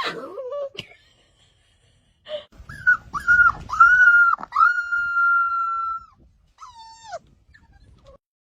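Puppy whining: a fading whine, a pause of about a second and a half, then several short whines leading into one long steady whine, and a short whine that falls in pitch near the end.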